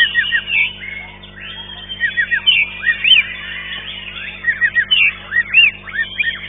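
White-rumped shama (murai batu) singing: quick runs of short, arching whistled notes mixed with chattering, coming in bursts over and over.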